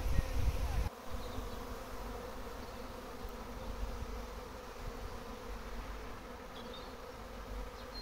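A honeybee swarm buzzing: a steady hum of many bees in flight. A low rumble on the microphone during the first second.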